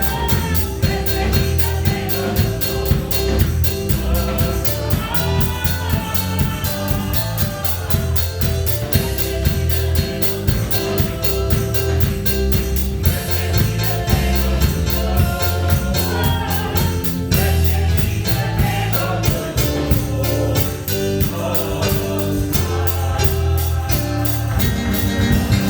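Gospel music: singing over a drum kit and other instruments, with a steady beat.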